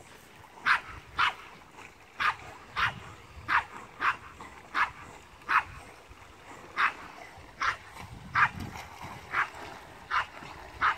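A dog yipping over and over in short, sharp calls, about fourteen of them, coming roughly once or twice a second.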